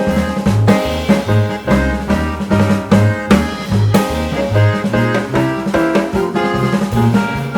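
Background music with a steady beat: drums over a bass line moving note by note.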